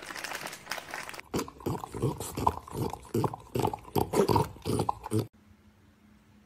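A French bulldog eating from a cup, making quick, noisy snuffling breaths and mouth sounds several times a second. These stop abruptly about five seconds in, leaving a faint steady hum.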